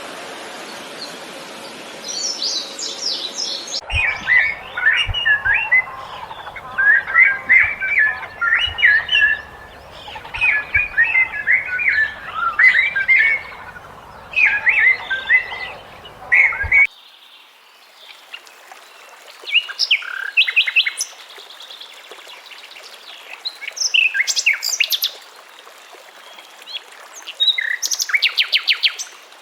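Birds chirping and calling in quick clusters of short notes, with a rapid trill near the end. A steady rush like running water fills the first few seconds, and the sound changes abruptly twice, as if separate recordings are joined.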